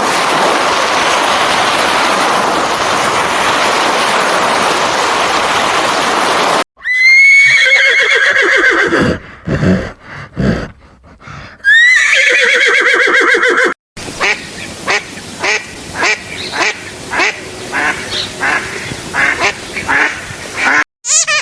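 A steady rushing noise for the first six seconds or so, then a horse whinnying twice in long, wavering calls that fall in pitch, then a run of short repeated animal calls, about one and a half a second.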